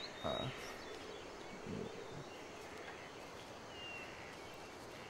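Steady outdoor woodland ambience with a few faint, short bird chirps, and a brief faint voice sound shortly after the start.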